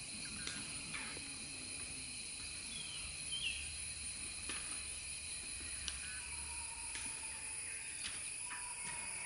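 Forest ambience: a steady, high insect drone with a few short bird chirps and clicks scattered through it.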